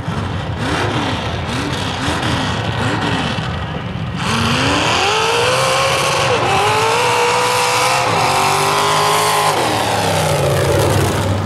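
Lifted Chevrolet S-10 pickup on big mud tires: its engine is blipped about four times at the start line. About four seconds in it launches at full throttle, the engine climbing in pitch through two gear changes, then easing off near the end.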